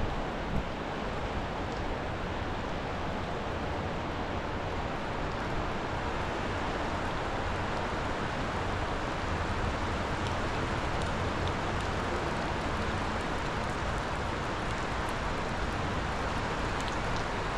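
Steady rushing noise of a flooded river running high and fast.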